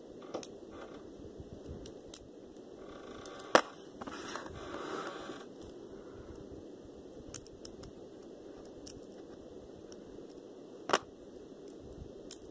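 Packaging being handled: scattered clicks and taps, two sharper clicks about a third of the way in and near the end, and a brief stretch of rustling between them.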